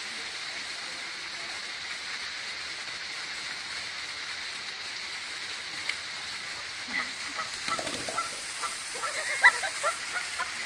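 Canada goose honking in short repeated calls, starting about seven seconds in and coming faster near the end, over a steady background hiss.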